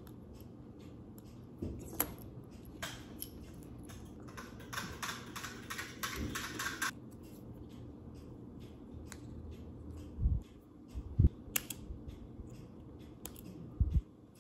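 Small metal clicks and scrapes of a precision screwdriver working the tiny screws in a smartwatch's back case, with a stretch of rapid ticking in the middle. Three low knocks come in the last few seconds as the back cover is lifted off and the watch is handled on the countertop.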